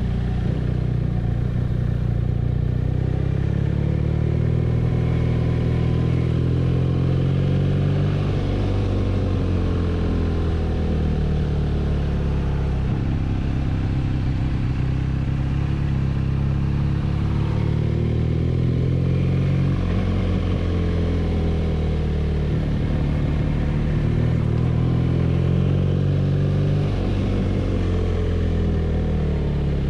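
BMW R nineT's air/oil-cooled boxer twin running under way, the revs climbing and dropping again and again as the bike accelerates and shifts, with wind noise.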